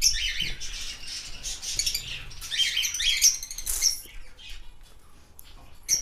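Lovebirds chattering: a dense run of shrill chirps and squawks that thins out after about four seconds.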